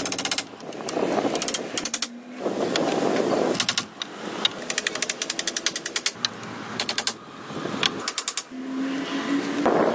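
Wooden poles being cut and fitted together by hand: bursts of very rapid rattling clicks alternating with short stretches of rasping noise.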